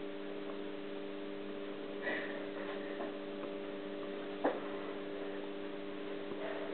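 Faint ticking over a steady hum, with one sharper click about four and a half seconds in.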